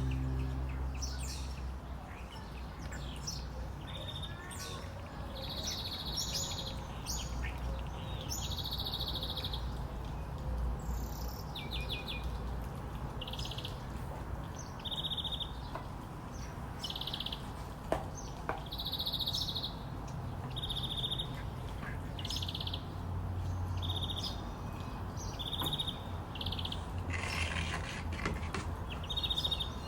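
Small birds chirping in short, repeated high calls, one every second or two, over a steady low background rumble.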